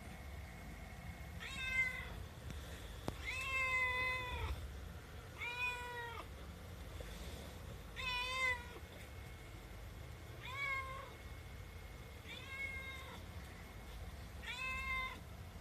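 Young Himalayan cat meowing over and over, about seven meows some two seconds apart, one of them longer than the rest: she is demanding her food.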